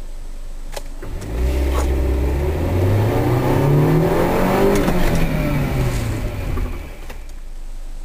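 Car engine heard from inside the closed cabin, its pitch rising steadily as the car accelerates from about a second in, then falling as it decelerates, settling back to a low hum near the end.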